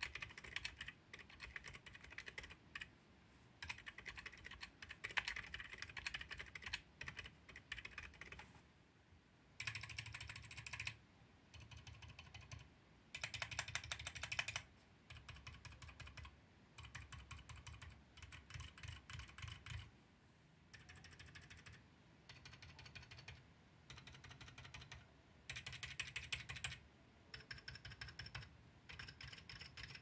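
Typing on an Ajazz AC064 mechanical keyboard with Outemu Silent Lemon switches, XDA PBT keycaps and a neoprene-dampened case: runs of rapid keystrokes lasting a second to a few seconds, broken by short pauses. The keystrokes are quiet.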